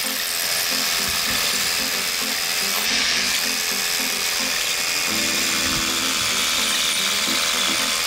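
Cordless rotary hammer drill hammering a bit into concrete to bore an anchor-bolt hole, with a vacuum hose at the bit sucking up the dust; a steady, continuous hammering rattle.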